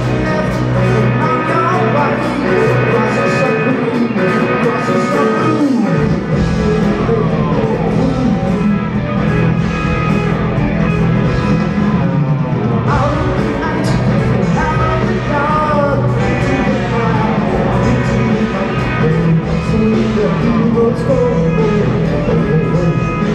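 Live progressive rock band playing: electric guitar, bass, drums and keyboards, with a lead vocal. The deep bass comes in about six seconds in.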